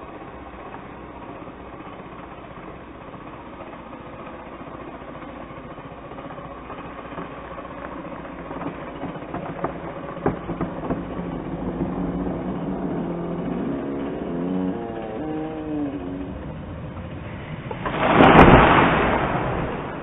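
Chainsaw running at the base of a tall poplar tree, with sharp cracks around the middle as the tree starts to lean, then the tree crashes heavily to the ground near the end, the loudest sound.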